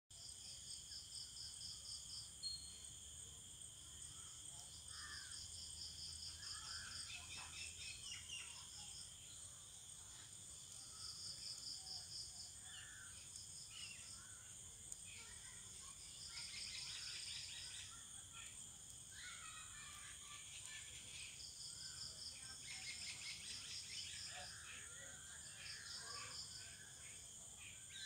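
Insects trilling and buzzing steadily in several high-pitched bands, with a pulsed trill coming back every few seconds and scattered bird chirps.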